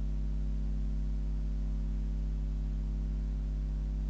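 Steady electrical mains hum, a low buzz with a stack of overtones, unchanging throughout.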